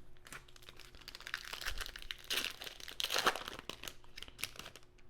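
Crinkling and rustling of card packaging being handled while sorting through a pack of trading cards, with a run of crackles that is loudest about halfway through.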